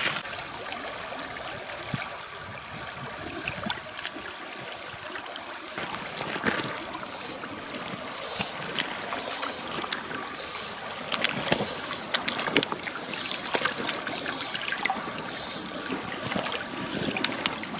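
River water running over a shallow riffle. From about eight seconds in, a fly line swishes through the air about once a second, the rhythm of false casting with a fly rod.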